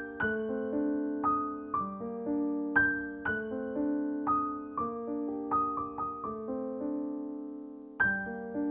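Background music on solo piano: a slow, gentle melody of single notes that ring and fade one after another, with one note left to die away near the end before the next begins.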